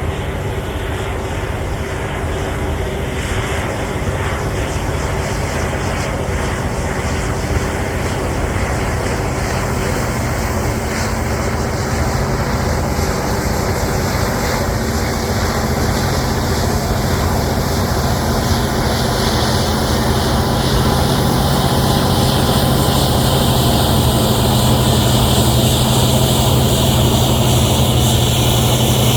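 Cat D9L bulldozer's diesel engine running under load: a steady, loud drone that gets louder about two-thirds of the way through.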